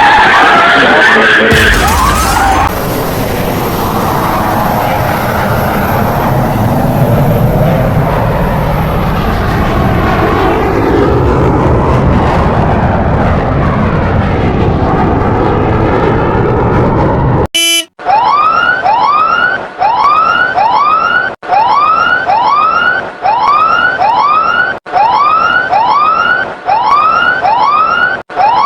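A loud, dense roar with slowly sweeping tones, which cuts off suddenly about 17 seconds in. Then a siren wails in quick rising sweeps, about two a second.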